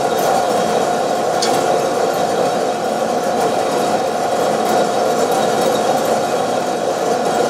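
Probat two-barrel sample coffee roaster running steadily: the drum motor and fan give an even hum with a constant whine, while a charge of green coffee roasts through the drying stage. A brief click about a second and a half in.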